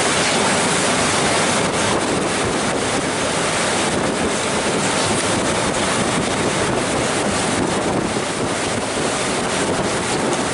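Steady rush of wind buffeting the microphone and churning wake water behind a fast-moving glacier cruise boat, loud and unbroken.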